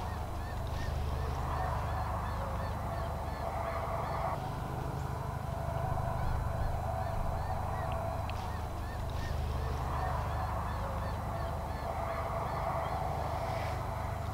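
Goose-like honking bird calls in two stretches of a few seconds each, over a steady low hum.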